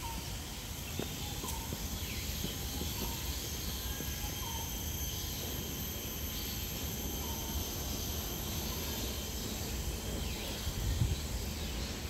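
Outdoor ambience: a steady high-pitched insect drone with a few faint, short bird chirps every second or two, over a low rumble.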